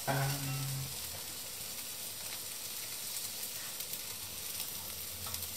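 Asparagus, onion and herbs sizzling steadily in butter in a frying pan on low heat. A brief low hum sounds in the first second.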